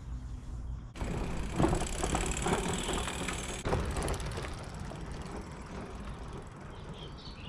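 Brompton folding bicycle passing close by at ground level, its small tyres rolling over gritty tarmac with many small crackles. The sound sets in suddenly about a second in and fades slowly as the bike rides away.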